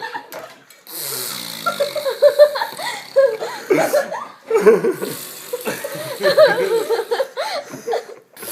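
A girl makes a fake fart noise about a second in, a short rasp that falls in pitch. It is followed by several seconds of giggling laughter.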